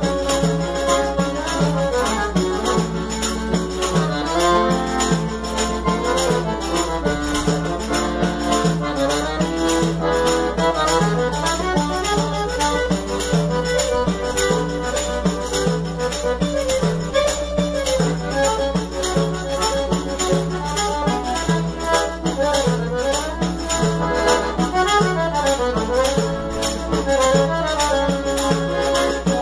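Piano accordion playing a lively tune: a moving right-hand melody over a steady pulsing rhythm of bass and chords, without a break.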